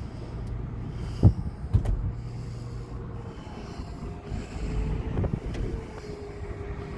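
Ford Focus CC's electro-hydraulic folding hardtop retracting: the hydraulic pump whines steadily while the roof panels fold and the boot lid lifts, with a few knocks from the roof mechanism along the way.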